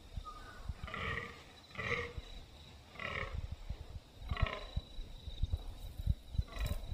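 Fallow buck groaning in the rut, a rutting call of dominance: a run of four short, deep croaks, about one every second or so.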